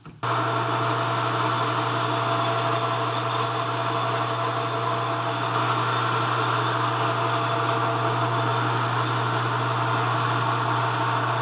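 Metal lathe running steadily with a constant motor hum while a tool cuts an internal groove in a spinning brass part. A high, thin whine joins in about a second and a half in and stops some four seconds later.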